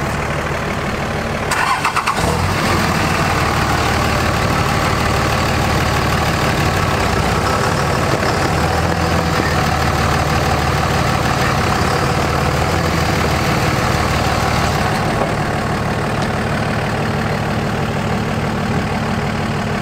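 Cummins diesel engine of a Dodge Ram pickup idling steadily, getting louder about two seconds in after a short rattle.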